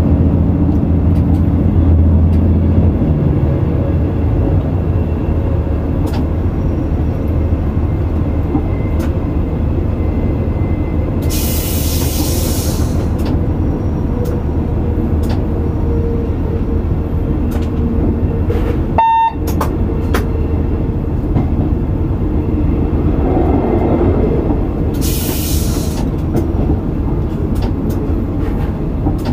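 X72500 diesel railcar heard from the driver's cab: steady engine and running noise, heaviest in the first few seconds, with two short hisses, one about twelve seconds in and another near the end.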